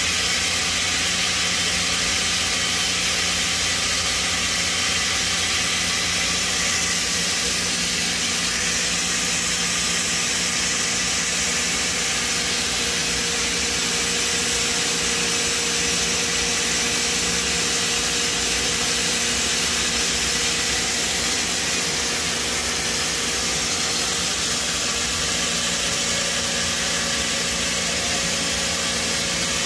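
Steady hum and hiss of a powered-up Mazak Integrex 100-IV ST CNC turn-mill lathe running, with a few faint steady tones under the hiss.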